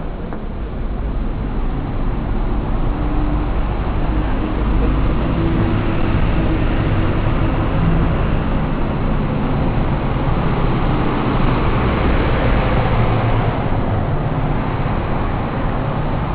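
City bus engines running: a steady low rumble that grows louder over the first few seconds as a bus comes past close by.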